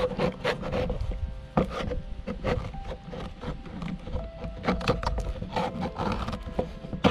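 A knife blade cutting open the lid of a tin can: a rapid, uneven series of short metal scrapes and clicks as the blade is punched in and levered around the rim, with the can knocking on a wooden table.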